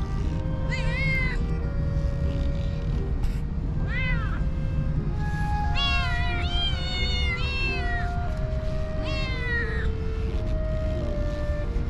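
Stray kittens meowing repeatedly, about six rising-then-falling cries with a cluster of them in the middle, the begging meows of hungry kittens asking for food. Soft background music with held notes plays underneath.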